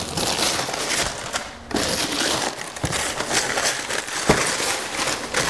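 Black paper wrapping being torn and crumpled off a cardboard box, a continuous crackling rip with a short pause, and two sharp knocks from the box being handled.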